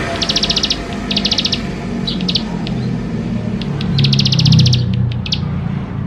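Ciblek sawah (a prinia) singing: a series of rapid high trills, each about half a second long and repeated every second or so, the longest about two thirds of the way through. A low hum runs underneath.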